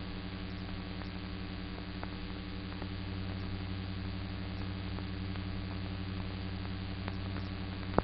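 Steady electrical hum with hiss and a few faint crackling clicks, one sharper click near the end: the noise floor of an old newsreel soundtrack with no narration or music playing.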